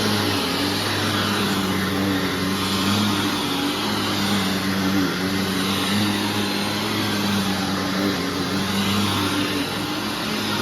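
2001 Hoover WindTunnel Self-Propelled Ultra upright vacuum running steadily while vacuuming carpet: a constant motor hum under the rushing of air, the hiss swelling and easing every couple of seconds.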